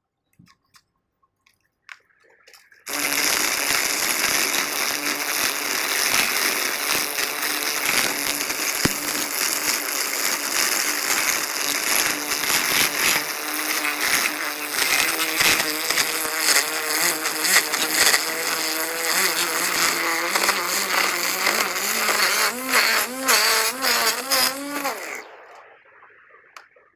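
String trimmer (weed eater) running at speed with a high buzz, starting suddenly about three seconds in. Its pitch wavers up and down, more so toward the end, before it dies away.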